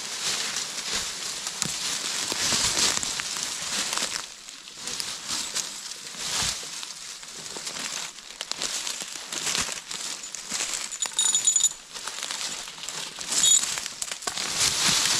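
Dry fallen leaves crunching and rustling under someone stepping and kneeling, with short metallic clinks of a steel chain a few times near the end as it is hooked around a log for winching.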